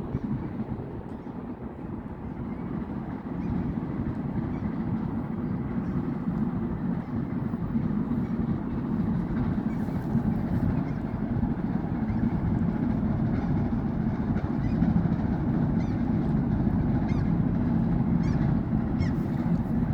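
Steady low rumble of a ship's engine and hull vibration heard from on board, growing louder from about three seconds in.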